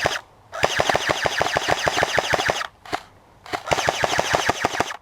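Airsoft electric gun firing rapid full-auto bursts, three runs of evenly spaced sharp shots with short gaps between them.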